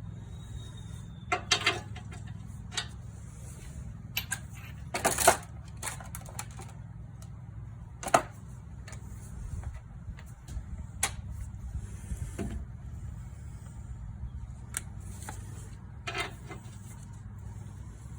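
Scattered metallic clicks and clanks of hand tools and parts being handled during car suspension work, the loudest about five and eight seconds in, over a steady low hum.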